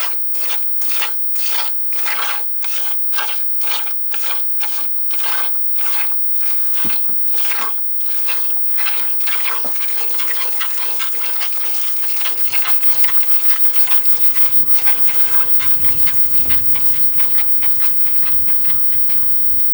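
Milk squirting into a pail as a cow is milked by hand: rhythmic hissing squirts, about two to three a second, that run together into a steadier hiss after about nine seconds. A low rumble joins in about twelve seconds in.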